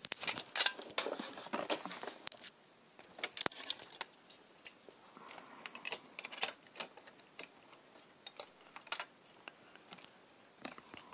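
Scattered clicks, light knocks and rustling as craft supplies and a small bottle are handled on a work table, busiest in the first few seconds.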